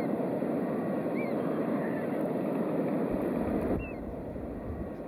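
Steady rushing outdoor background with short, high bird chirps repeating about once a second. A low rumble comes in about three seconds in, and the rushing eases soon after.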